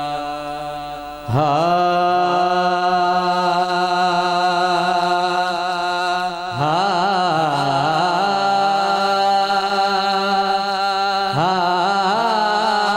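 A singer holding long, ornamented vowel notes in a Punjabi naat recitation, with wavering glides in pitch. Three phrases begin: about a second in, midway through, and near the end.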